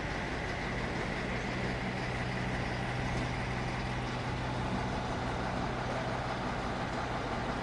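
Steady hum of stationary heavy vehicles idling, with a constant low drone and a faint high whine over street noise.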